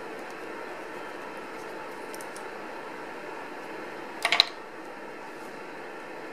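A quick cluster of plastic clacks about four seconds in, as a small plastic pen part is set down on a wooden board. It sits over a steady hiss of background noise, with a few faint handling ticks earlier.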